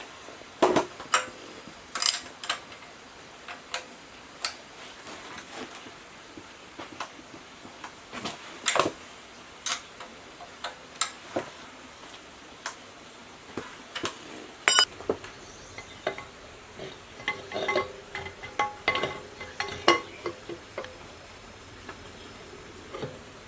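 Irregular clinks and knocks of metal parts and hand tools being handled during diesel engine repair work, with a sharp ringing strike about 15 seconds in and a run of ringing clinks a little later.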